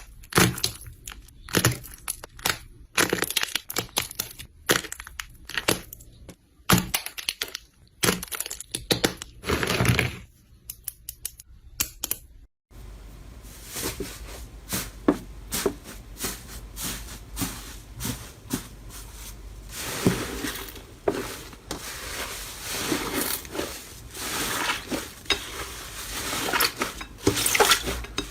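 Slime being squeezed and pressed by hand, making a run of crackling pops and clicks. About halfway through it cuts to another clip, where the crackling goes on over a steady low hum.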